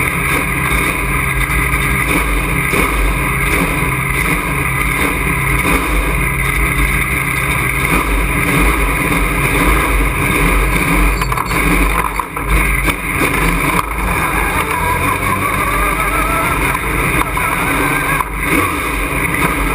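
Super Truck race truck's engine running hard, heard from inside the cockpit. There are brief dips about twelve and eighteen seconds in, and a rising whine between them.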